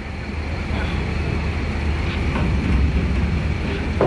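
Deep, steady rumble of a heavy truck's diesel engine pulling under load, slowly getting louder, with a steady high whine above it.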